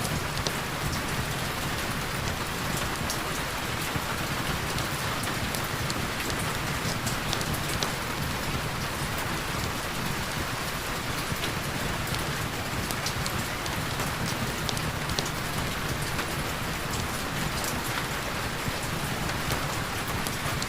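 Heavy rain falling steadily, with the taps of individual drops scattered through it.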